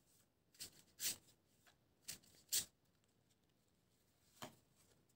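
Deck of cards being shuffled by hand: several faint, short swishes, then a pause and one more near the end.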